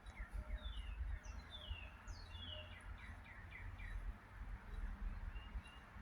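Small birds chirping, a quick series of short notes that each slide down in pitch, over a gusty low rumble of wind on the microphone.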